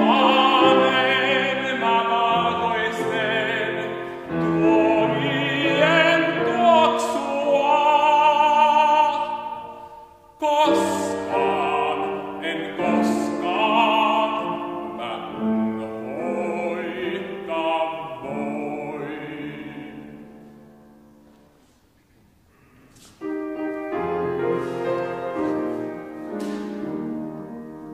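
A baritone sings a classical song in a trained operatic voice with vibrato, accompanied by piano. The singing dies away about 21 seconds in. After a brief hush, a piano introduction starts with steady held notes.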